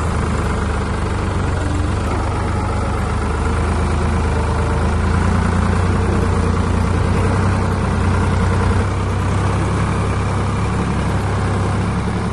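Old Ford backhoe's engine running steadily with a deep, even drone.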